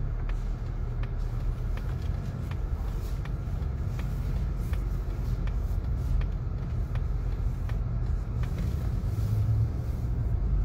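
Steady low rumble of a car's engine and tyres heard from inside the cabin while driving slowly. Through it runs an even ticking, about one tick every two-thirds of a second, from the turn signal as the car turns.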